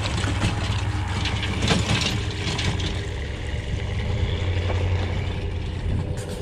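An engine idling steadily in the background, with footsteps crunching on loose shoreline gravel.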